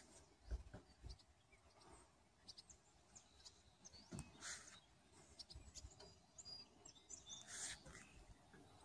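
Faint birdsong: scattered short high chirps and calls, with a few low bumps on the microphone.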